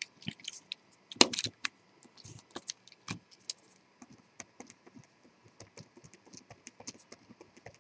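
Pen writing on paper: an irregular run of short scratches and taps, with a louder knock about a second in.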